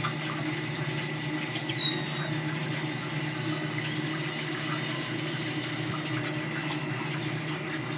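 Water running through a pressurised drip-irrigation line under a steady low hum, as an adjustable dripper is twisted open and water begins to spurt from it. A brief high squeak, falling in pitch, comes about two seconds in.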